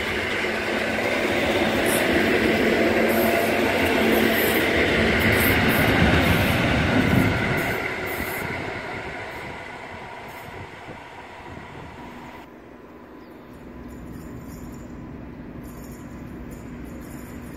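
EN57 electric multiple unit running past close by along the station track, the rumble of its wheels on the rails building to a peak about six or seven seconds in, then fading as it moves away. After a sudden cut, a fainter steady hum.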